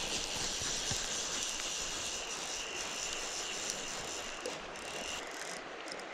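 Shallow stream water running over stones, a steady hiss that drops away about five seconds in.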